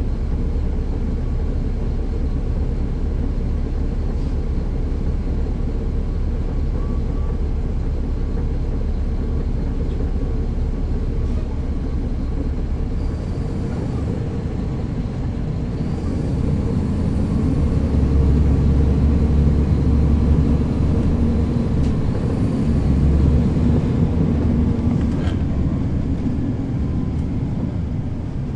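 Caterpillar C13 diesel engine of a NABI 416 transit bus, heard from the rear seats inside the bus: running steadily, then getting louder and deeper from about halfway through with a faint high whine over it, and easing off near the end.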